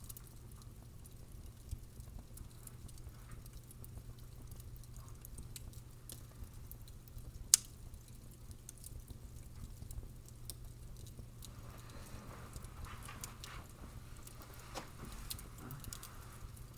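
Fire crackling: a steady low rumble with scattered small crackles and one loud pop about seven and a half seconds in. In the last few seconds the crackles come thicker over a faint hiss.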